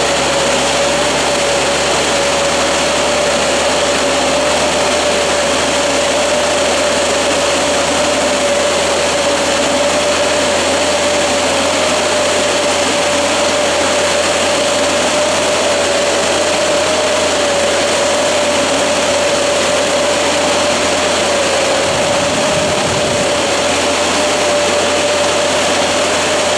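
Tractor-mounted oscillating fan sprayer at work: engine and fans running steadily, a loud even rush of air and spray with a constant mid-pitched whine.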